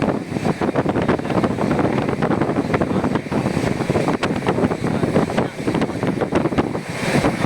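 Passenger train running: a steady rumble and rattle with many quick clicks and knocks, and wind buffeting the microphone.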